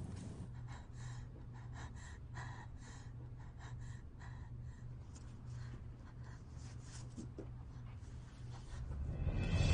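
A woman's gasping breaths and sobs, coming in irregular short strokes over a low steady hum, with music swelling in near the end.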